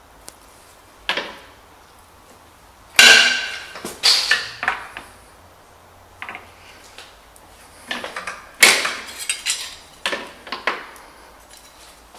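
Bench-top sheet-metal folder being worked: a series of sharp metallic clanks and rattles as the clamping bar and bending leaf are moved and the sheet-metal piece is bent and handled. They are loudest about three seconds in and again near nine seconds.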